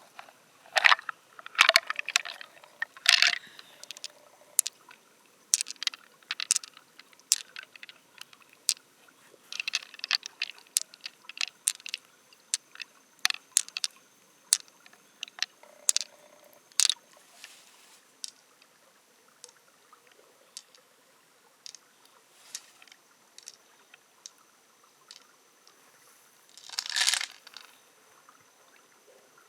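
Irregular sharp clicks, crunches and scrapes of a large mussel shell being handled and worked open, with a longer scraping sound near the end.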